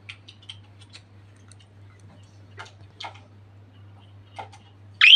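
Faint scattered clicks, then near the end a budgerigar gives one loud short chirp that rises sharply in pitch.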